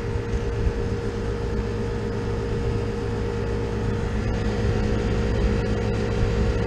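Air-conditioning condensing unit's compressor running with a steady hum while the condenser fan stands still; the system is low on refrigerant.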